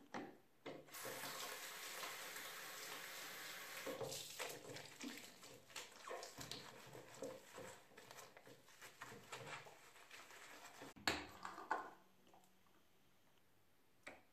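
Water runs from a bathroom tap into the washbasin for a few seconds while the tap and sink are wiped with a cloth. After that come rubbing and small knocks of things being handled on the basin and shelf, with one sharp, louder knock near the end.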